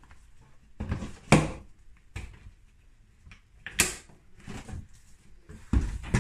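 Hard plastic knocks and clicks as a lawnmower grass box is handled and its fabric bag is clipped onto the plastic lid: a handful of separate sharp knocks, the loudest about a second in.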